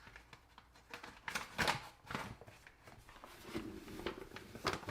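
Kitchen handling noise while baking ingredients are measured out: a few short rustles and light taps, loudest about a second and a half in and again near the end.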